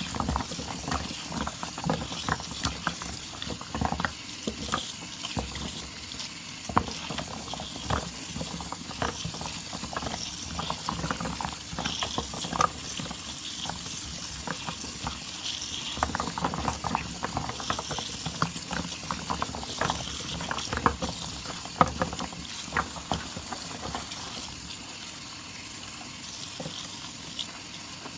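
Wet soap lather being worked by hand, squelching and crackling with many small, irregular wet clicks and popping foam bubbles.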